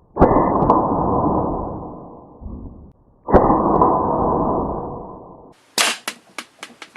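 Two shots from a metal airsoft pistol about three seconds apart, each with a second sharp click about half a second after it and a rushing noise that fades over about two seconds. A quick run of sharp clicks follows near the end.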